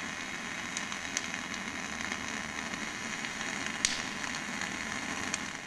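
MAG (gas-shielded) welding arc burning with a steady sizzle and a few sharp ticks, one louder about four seconds in; the arc is running under a full shielding-gas atmosphere.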